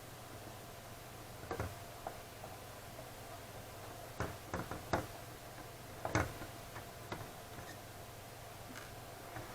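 Irregular small clicks and knocks of hard parts and tools being handled during work on a graphics card, over a steady low hum.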